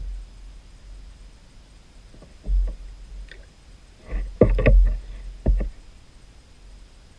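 A few dull knocks and thumps on the plastic kayak as a red drum is unhooked with pliers and handled, with a single knock about two and a half seconds in and the loudest cluster of knocks between about four and five seconds.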